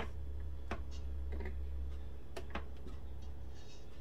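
Faint steady low hum, with a few soft clicks and ticks scattered through it.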